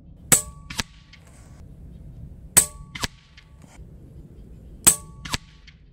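Daystate Pulsar .22 PCP air rifle firing three shots about two seconds apart on high power. Each sharp crack is followed about half a second later by a fainter smack: the pellet striking the target downrange.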